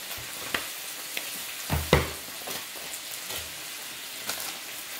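Pork belly and vegetables sizzling in oil in a skillet: a steady hiss with scattered crackles and pops, one louder pop a little under two seconds in.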